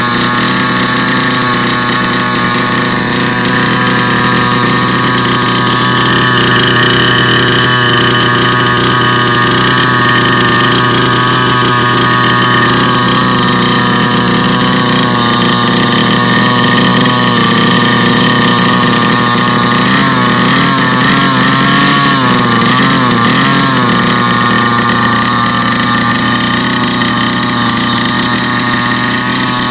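Small two-stroke petrol engine of a King Motor T1000 1/5-scale RC truck, fitted with a twin exhaust, idling steadily. About two-thirds of the way through its pitch wavers up and down for a few seconds, then it settles back to an even idle.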